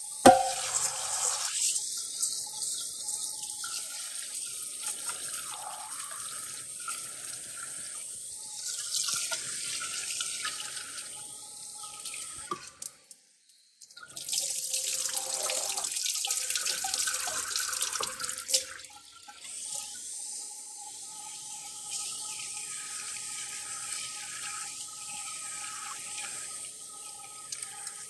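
Kitchen tap running into a steel pot in a stainless steel sink while rice is rinsed by hand in the water. The flow stops briefly about halfway through, then runs louder for a few seconds.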